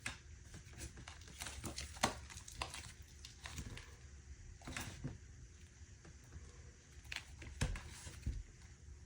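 Crinkling, taped armor test plate of alumina hexagon tiles over a titanium grid being handled and flexed, with irregular clicks and knocks. The sharpest knocks come about two seconds in and again near the end.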